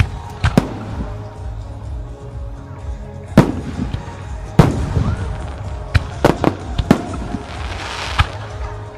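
Japanese aerial firework shells bursting overhead: about nine sharp, loud bangs at irregular intervals, some in quick succession around the middle. Music with sustained tones plays underneath.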